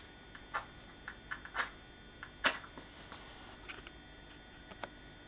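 Matches being struck again and again without lighting: a string of short, sharp scratchy clicks, the loudest about two and a half seconds in.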